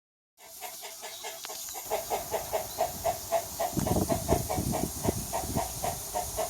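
Honeybee queen piping inside the hive: a rapid series of short, pitched toots, about three to four a second, over a steady hiss, with a few dull knocks in the middle.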